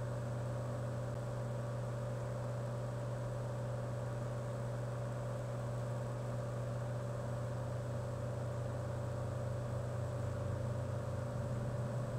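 Steady background hum: a low drone with a fainter, higher tone above it, unchanging throughout.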